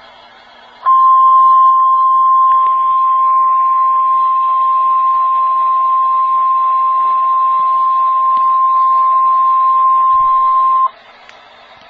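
NOAA Weather Radio warning alarm tone: a single steady 1050 Hz tone starting about a second in, held for about ten seconds and cutting off suddenly. It is the alert that signals a warning message is about to be broadcast.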